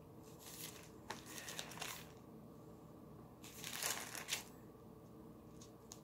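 Bible pages faintly rustling as they are leafed through: a few soft rustles in the first two seconds and a louder, longer rustle about three and a half seconds in.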